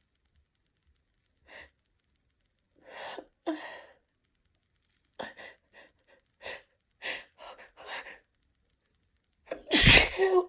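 A woman's sneeze build-up: a series of short, catching in-breaths, then one loud sneeze near the end. The sneeze is brought on by Chhinkni sneezing powder taken for a tickly, congested nose.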